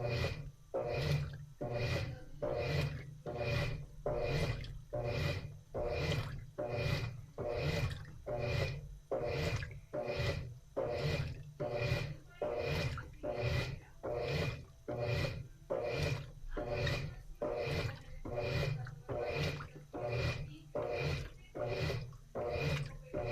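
Washing machine agitating a load: water swishes back and forth in regular strokes, about three every two seconds, over a low motor hum.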